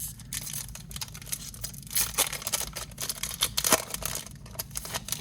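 Football trading cards being handled and sorted by hand: a continuous run of light clicks, slides and paper-like rustles as cards are flipped and set down.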